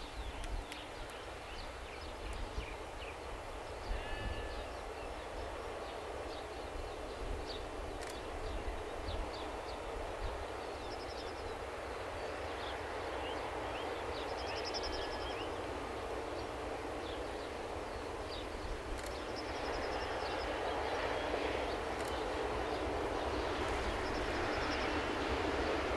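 Diesel freight locomotive approaching in the distance, its engine noise swelling slowly and growing louder over the last third. A steady low wind rumble runs under it, with scattered bird chirps.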